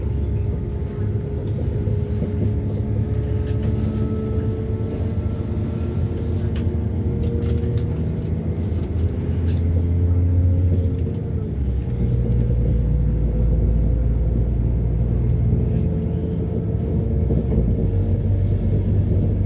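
Train running: a steady low rumble with engine or transmission tones slowly rising and falling in pitch, the rumble getting heavier about twelve seconds in.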